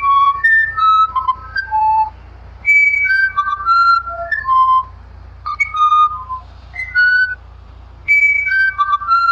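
A bird's whistled song: short phrases of clear, pure notes stepping up and down, repeated about every three seconds.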